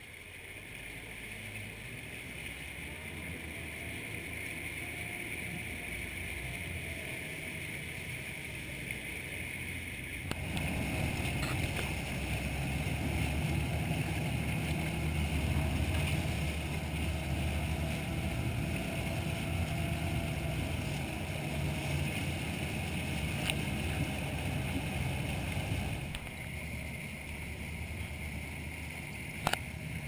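Three Mercury FourStroke outboard engines running at low speed as the boat is manoeuvred on joystick control, with water churning at the stern. The engines rise about ten seconds in and ease back about 26 seconds in; a short click comes near the end.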